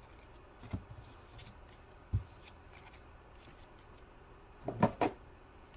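Trading cards being handled: sparse soft card rustles and small clicks, then two sharp taps in quick succession near the end.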